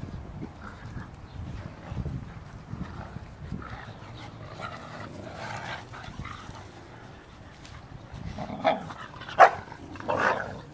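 Cane Corso dogs playing tug-of-war together: low rumbling and scuffling, then three loud barks in quick succession near the end, the middle one the loudest.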